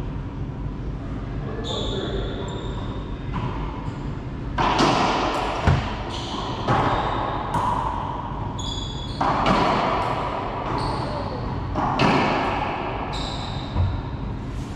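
Racquetball rally in an enclosed court: sharp cracks of the rubber ball off racquets and walls, about a dozen at irregular intervals, each ringing out in the hard-walled room.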